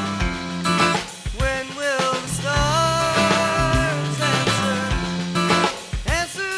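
Rock music with a drum kit and melodic lines that bend in pitch, with a swooping glide near the end.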